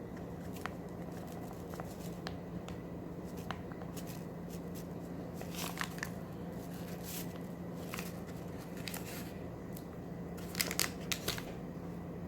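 Packet of Jell-O banana cream instant pudding mix crinkling and tearing as it is opened and poured, in several short bursts of rustling and scattered small clicks. A steady low hum runs underneath.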